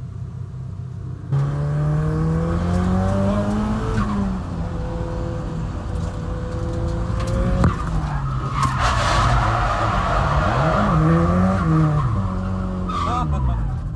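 Nissan Silvia drift car heard from inside the cabin: the engine revs up from about a second in, with a gear change near four seconds. From a little past the middle the tyres squeal in a slide while the revs rise and fall.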